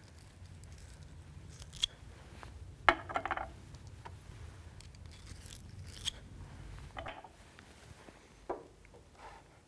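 Brass rifle cases and a case-neck brush handled on a lubricating pad during case lubrication: soft scrapes, rustles and a few small clicks, loudest about three seconds in.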